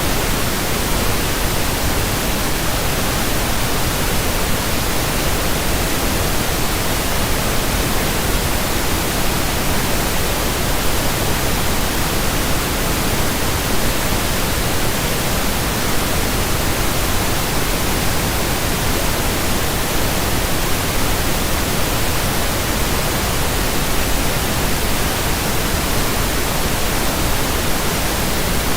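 Steady pink noise: an even, unchanging hiss across the whole range, with no breaks or events.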